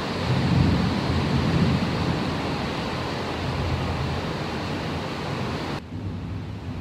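Steady rushing noise of heavy rain, with a low rumble that is loudest in the first two seconds. The sound drops and changes abruptly about six seconds in.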